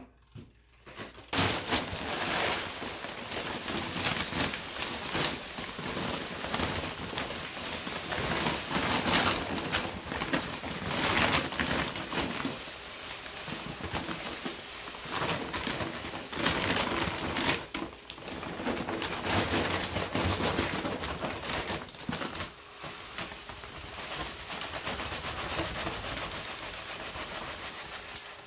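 Crushed malt grain pouring from a sack into the water in a stainless steel brew kettle during dough-in: a steady rushing hiss that swells and eases with the flow and breaks off briefly several times as the sack is shifted.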